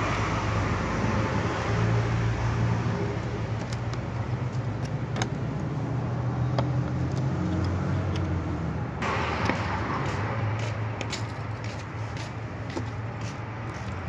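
Steady low rumble of motor traffic, with scattered light clicks and taps of a screwdriver working at the plastic motor-mount bushings; the clicks come more often in the last few seconds.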